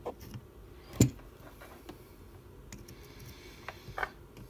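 Scattered handling clicks and knocks: a sharp knock about a second in, a smaller one about four seconds in, and light clicks between.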